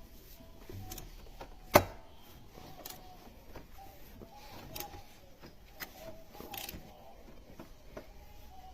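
Mercedes M278 V8 engine knocking at its camshaft adjusters: irregular knocks and ticks, one much louder knock about two seconds in, the sign of faulty camshaft adjusters (cam phasers).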